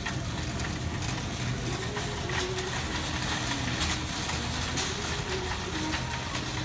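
Wire shopping cart rolling over a hard store floor: a steady low rumble from the wheels, with light clicks and rattles from the cart's frame and basket.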